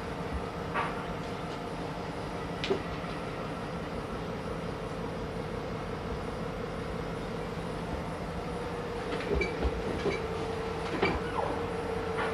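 Steady machinery hum with a held tone, broken by a few short metallic clanks and squeals, several of them close together near the end.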